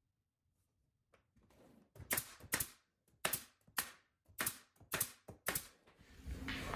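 Pneumatic nail gun firing about seven nails into a wooden trim board, one sharp shot roughly every half second.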